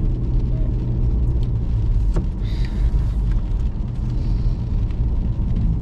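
Steady low rumble inside a car's cabin, with one sharp click about two seconds in.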